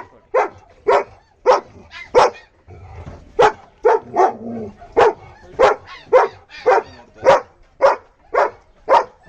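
A German Shepherd barking repeatedly at about two short barks a second, with a brief pause a little over two seconds in.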